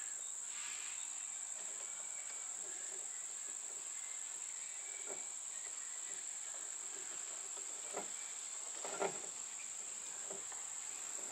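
Steady high-pitched insect drone, with a few faint clicks and rustles from wires being twisted into a plastic wire nut.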